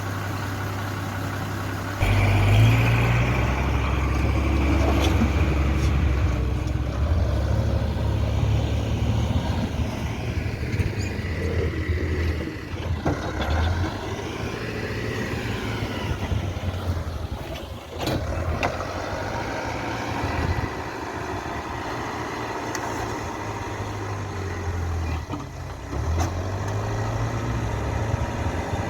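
Backhoe's diesel engine running and revving up about two seconds in as the machine works, its speed rising and falling, easing back around the middle and picking up again near the end.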